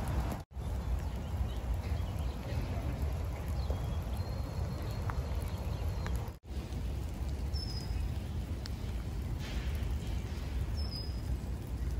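Outdoor ambience on a rainy day: a steady hiss of light rain over a low rumble, with a few short, high bird chirps in the second half. The sound drops out for an instant twice.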